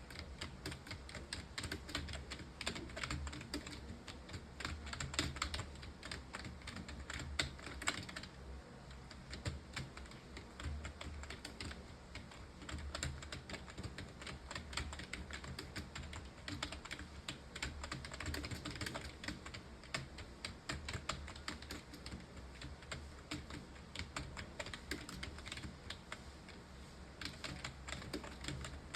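Continuous typing on a computer keyboard: a fast, uneven stream of key clicks.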